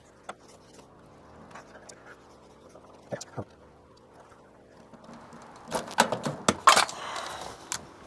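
Metal parts being handled at an air-conditioner condenser's control panel: a few faint clicks, then, about six seconds in, a burst of sharp metallic knocks and clatter, typical of the capacitor's aluminium can being dropped against the unit's sheet-metal housing.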